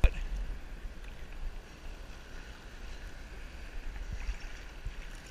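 Sea water lapping and sloshing around a camera held at the surface, with a low wind rumble on the microphone. There is a sharp knock at the very start and a couple of faint thumps about four seconds in.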